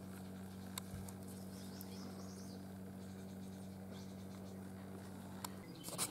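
North American porcupine chewing leaves up close: soft, irregular crackles, clicks and rustling of the plants it is eating, with one sharper click near the end. A faint low hum runs underneath and stops shortly before that click.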